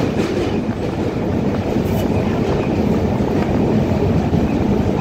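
Steady low rumble of a moving vehicle, heard from on board as it travels.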